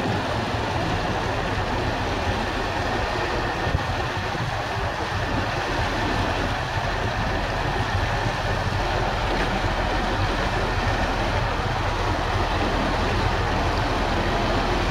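Boat engine running steadily with a low rumble, under the broad rush of water churning at the hull and in the wake.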